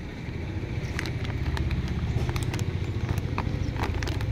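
Crinkling and sharp clicks of a clear plastic toy bag being handled and opened, over a steady low rumble that grows louder about half a second in.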